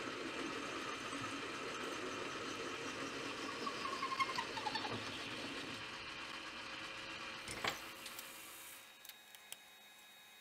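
Metal lathe running with a steel rod turning in the chuck, then winding down, its pitch falling about halfway through. A sharp clack comes near the end, followed by a few light ticks.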